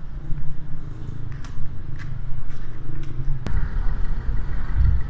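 Steady low rumble of road traffic, with footsteps on pavement about twice a second. The rumble grows louder about three and a half seconds in.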